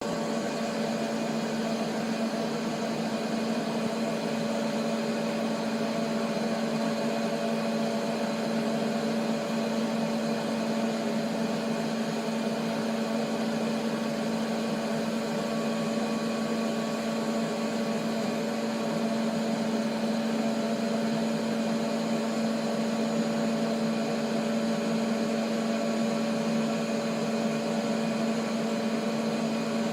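Mostly Printed CNC (MPCNC) machine running: a steady, unchanging motor hum with one strong low tone and a fainter higher tone over a hiss.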